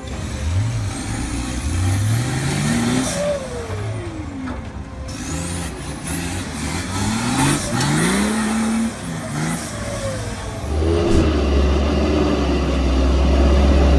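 Truck engine revving up and dropping back several times as it works through a manoeuvre, then a loud, deep rumble building near the end.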